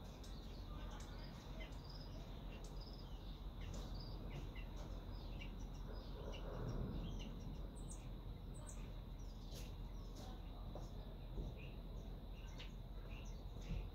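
Small birds chirping on and off over a low, steady rumble, with a faint steady high whine; the rumble swells briefly about seven seconds in.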